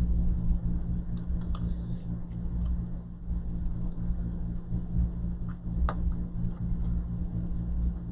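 A few small sharp clicks and taps of tiny phone screws and a precision screwdriver being handled during iPhone disassembly, over a steady low hum.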